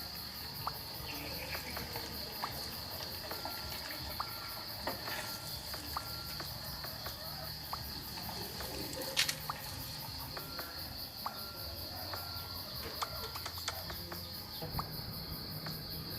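Insects chirring steadily in a high, fast-pulsing drone, with scattered light clicks and taps over it, one a little sharper about nine seconds in.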